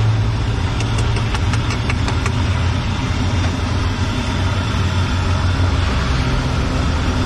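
Battered tempe mendoan and stuffed tofu deep-frying in a large wok of oil: a steady sizzle. Under it runs a steady low engine-like hum, and there are a few light clicks between one and two seconds in.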